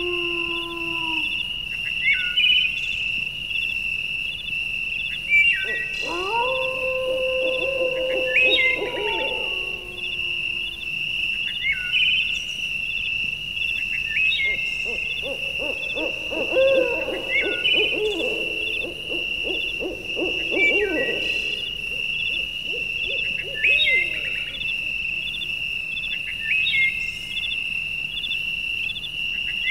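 Nature ambience: a steady chirping insect chorus with short bird calls every few seconds. Long, low animal calls come in about six seconds in and again, several overlapping, from about fifteen to twenty-one seconds.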